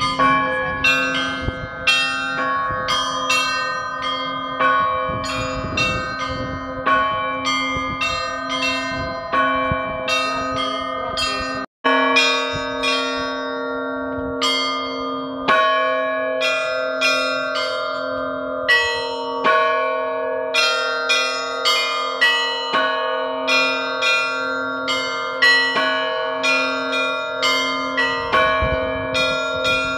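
Orthodox church bells rung by hand close up in the belfry: a rapid, rhythmic pattern of several small and middle bells struck over and over, each leaving a ringing tail, above a steadily sounding deeper bell. The sound breaks off for an instant a little before the halfway point, then the same ringing carries on.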